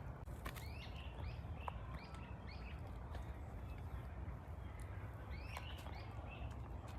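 A songbird calling in runs of short, quick chirps, one run in the first couple of seconds and another near the end, over a steady low outdoor rumble with a few faint clicks.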